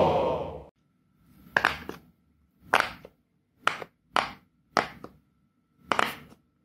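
Silicone bubbles of a rainbow dinosaur pop-it fidget toy being pressed in, each giving a sharp, short pop, about one a second with a quick pair near the end.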